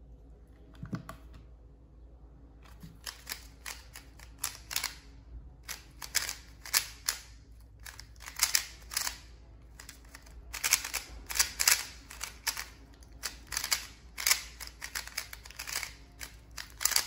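Qiyi MS 3x3 magnetic speed cube being turned fast: quick, irregular plastic clicks and clacks of the layers snapping round. A few faint clicks at first, then steady fast turning from about two seconds in.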